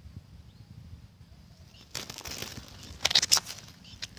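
Close rustling and crackling, starting about two seconds in, with a few sharp, loud crackles about a second later, over a low steady rumble.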